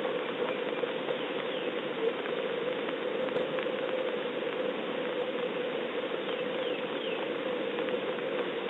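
Steady rain pattering, heard through a security camera's microphone, with a few faint short bird chirps now and then.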